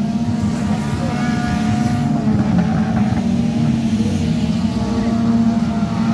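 Engines of several small race cars running hard on a dirt track, a loud, steady drone of overlapping engines whose pitch rises and falls as they rev.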